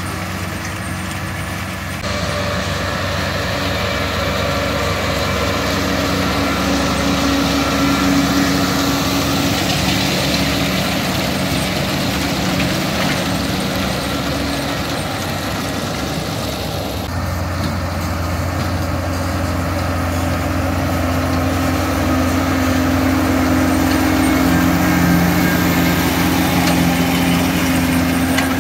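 New Holland tractor's diesel engine running steadily under load as it pulls a Claas Rollant 455 Uniwrap round baler-wrapper through hay, with the baler's working noise mixed in. The tone and mix shift abruptly twice, about two seconds in and again around seventeen seconds.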